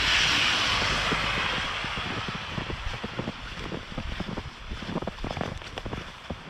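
Outdoor rushing noise that swells at the start and fades away over a few seconds, followed by wind buffeting the microphone in low, uneven thumps.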